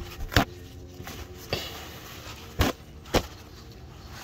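Four short, sharp clicks and knocks a second or so apart, from hands handling tools and parts during work on the car.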